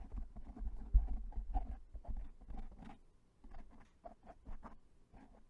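Fingertips rubbing and scratching a foam microphone windscreen up close: an irregular run of soft crackles and dull thumps, the loudest about a second in.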